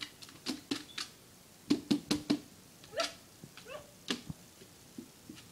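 A boxer dog's paws and claws knocking and clattering a plastic frisbee against a tiled floor in an irregular series of sharp knocks, loudest in a quick cluster about two seconds in. Two short rising squeaks come around the middle.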